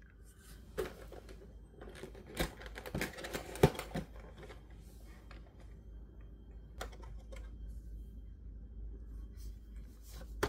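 A cardboard toy box being handled and opened: scattered clicks and knocks with scraping and rustling of the packaging, the sharpest knock a little under four seconds in.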